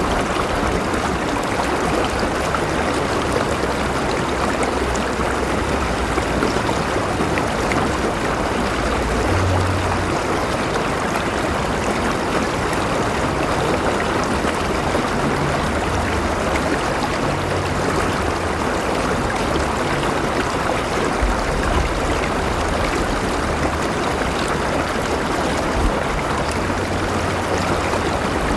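River water flowing steadily over rocks, a constant rushing and babbling with a low rumble underneath.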